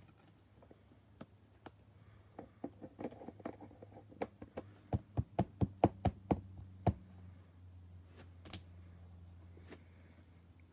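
A run of light taps on a tabletop as trading cards and a card pack are knocked against it, coming about three a second and loudest near the middle, then stopping.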